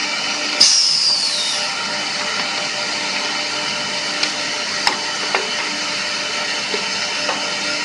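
CNC side-drilling machine running with a steady drone and hiss. A sharp click about half a second in is followed by a high whine that falls in pitch over about a second, and a few light clicks come around the middle.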